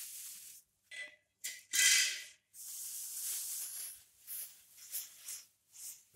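Plastic packaging being handled, crinkling and rustling in a string of irregular rustles, the loudest about two seconds in.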